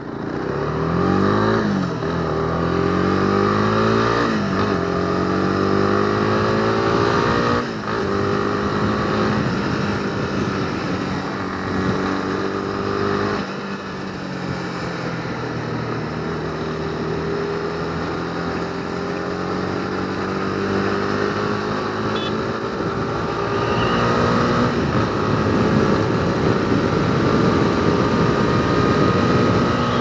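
Honda CB300R's 286 cc single-cylinder engine accelerating hard through the gears, its pitch climbing and dropping back at three upshifts in the first eight seconds. It then runs steadily at highway speed, easing off briefly near the middle and slowly building speed again.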